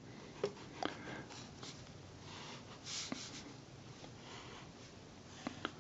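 A pencil scratching softly across notepad paper in a series of short drawing strokes, with a few light ticks of the lead touching down.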